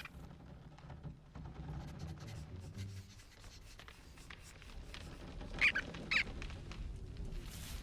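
Two short, high squeaks about half a second apart, from a small cartoon animal, over a steady low ambient rumble with faint scattered ticks.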